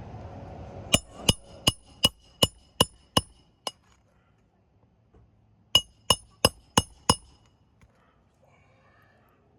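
A hammer driving a roofing nail with sharp metallic ringing strikes: a run of eight blows at about three a second, a pause, then five more.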